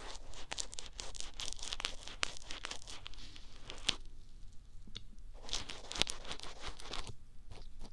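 A spatula stirring and scooping a thick, sticky paste in a bowl held right at a binaural microphone: dense crackly, sticky sounds for about four seconds, then a short pause and a second run.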